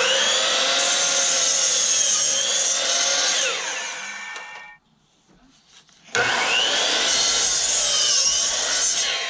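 DeWalt sliding compound miter saw cutting through a wooden board twice. Each time the motor runs steadily through the cut, then winds down with a falling whine once the trigger is released. The first run ends about five seconds in; the second starts about a second later and is winding down near the end.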